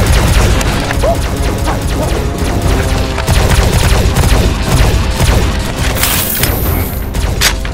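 Background music mixed with rapid Nerf blaster firing, with a sharp hit near the end.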